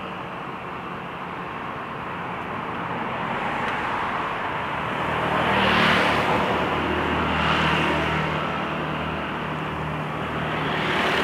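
Road traffic noise while moving along a city street: a low engine hum sets in partway through, with swells of rushing noise from passing traffic or wind, loudest about six seconds in.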